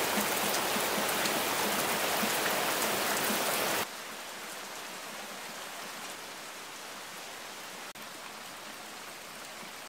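Heavy rain pouring down in a steady hiss. About four seconds in, it drops suddenly to a quieter, steady rain hiss.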